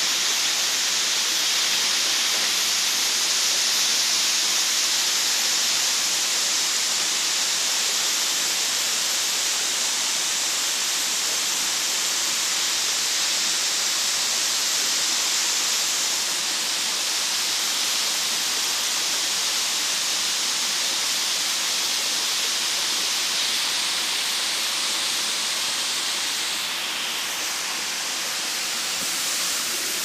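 Waterfall rushing: a steady, dense hiss of falling water, a little softer in the last few seconds.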